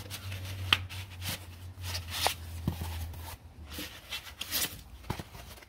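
Irregular rustling with light clicks and knocks as hands handle the fiber laser engraver and its foam packing. A low steady hum runs underneath and stops about three seconds in.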